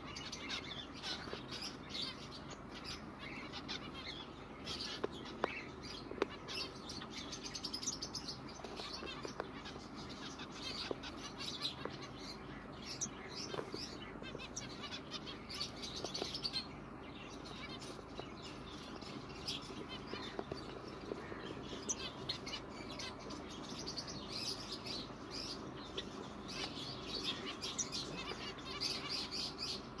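A colony of aviary finches, mostly zebra finches, chirping continuously: many short, overlapping high calls with no pause.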